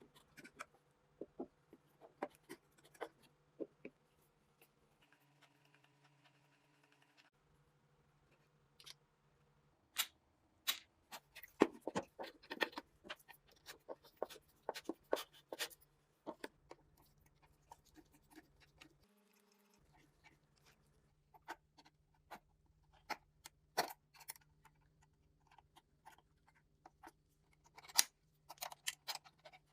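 Irregular small clicks and taps of hand-work on small parts, in clusters, with a faint steady low hum underneath.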